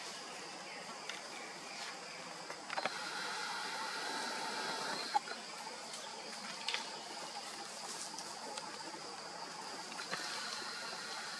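Bamboo clatter as golden langurs climb through a bamboo thicket: a few sharp clicks and rustles of stems and dry leaves, the loudest about halfway through, over a steady outdoor hiss with a thin high drone.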